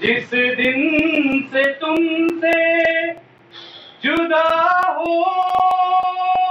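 A high voice chanting a slow mourning lament without instruments, holding long notes in phrases with a short break about halfway through. Sharp clicks beat steadily underneath, about three a second.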